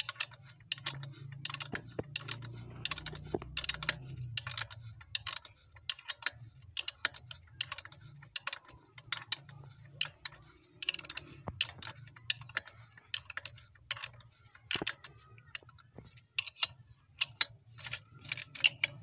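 Ratchet wrench clicking in short, uneven strokes as it turns the nut of a threaded bush puller on a motorcycle swingarm, drawing out the worn swingarm pivot bush.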